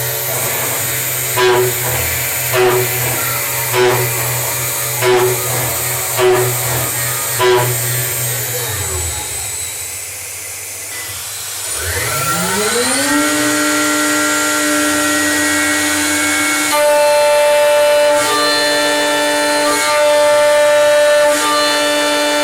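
CNC mill spindle motor running under a repeating cycle, with a short knock about every 1.2 s. It then winds down, spins back up in a steep rising whine and holds a steady high-pitched whine.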